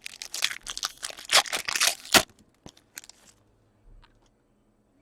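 Trading-card pack wrapper crinkling and tearing in quick rustling bursts for about two seconds, followed by a few light clicks of cards being handled.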